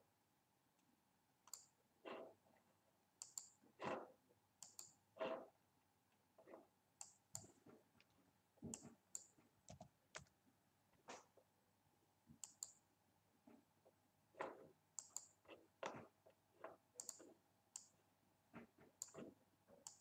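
Faint computer mouse clicks, many of them irregularly spaced, some in quick pairs, with duller knocks mixed in among them.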